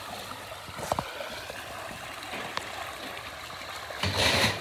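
Pond water splashing and churning as a crowd of catfish thrash at the surface, feeding. There are a few small clicks about a second in and a louder burst of noise near the end.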